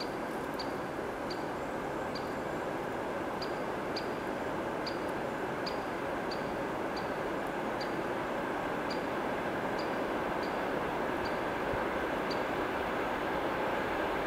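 Train approaching: a steady rumble slowly growing louder. Over it a short high chirp repeats about every two-thirds of a second.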